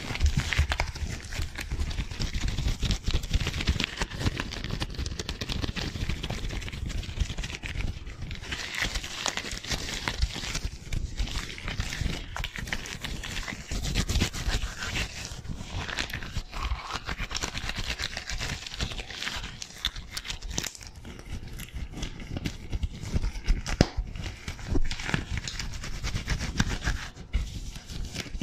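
White disposable gloves on both hands rubbing, flicking and tapping together fast and hard right at a foam-covered microphone: a dense, unbroken run of quick taps and rustles.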